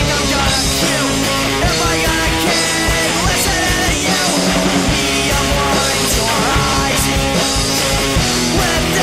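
Punk rock band playing an instrumental passage without vocals: electric guitar, bass guitar and drums, with cymbal crashes cutting through at regular intervals.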